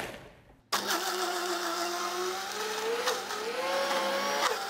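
Alton commercial smoothie blender running after a brief gap, blending a yogurt-and-ice drink that is already a smooth slush. Its motor whine drifts slightly up and down, then falls as the motor is switched off and winds down near the end.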